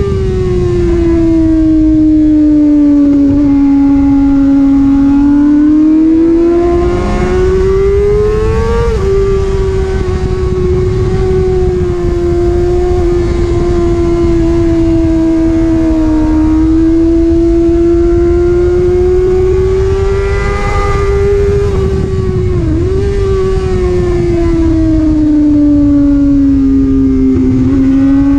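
Sport motorcycle engine running hard at high revs, heard from on the bike at speed with heavy wind noise on the microphone. The pitch sags and climbs slowly through the corners, rises then steps down at a gear change about nine seconds in, and dips briefly about twenty-three seconds in.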